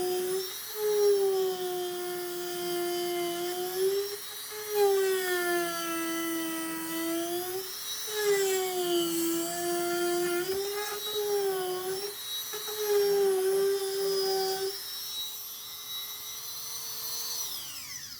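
Dremel rotary tool with an abrasive bit grinding around a threaded insert in a kayak hull. Its high steady whine dips in pitch each time the bit bears down, then runs free and winds down as it is switched off near the end.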